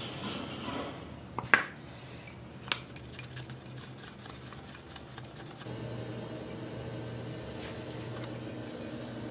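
Metal spoon scraping and clinking against a ceramic cup and plastic bowl while scooping soft cornmeal dough, with a few sharp clinks about a second and a half and nearly three seconds in. A steady low hum comes in about halfway through.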